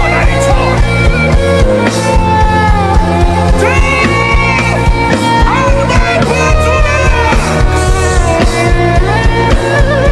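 Instrumental worship music with a steady beat, held bass notes and a gliding lead melody line.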